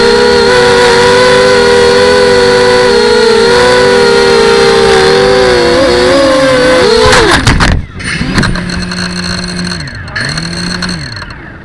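FPV racing quadcopter's motors and propellers whining steadily at high throttle, the pitch wavering slightly. About seven seconds in, a short sharp clatter of a crash cuts the whine off. Fainter low humming tones that rise and fall follow.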